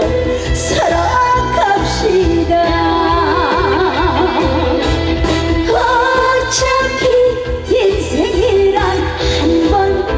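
A woman sings a Korean trot song live over a band backing with a steady beat. Her held notes carry a wide, wavering vibrato.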